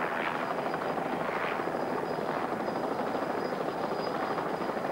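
Light single-rotor helicopter's rotor and engine running steadily as it lifts off and climbs vertically, the collective lever raised to increase the pitch of the blades.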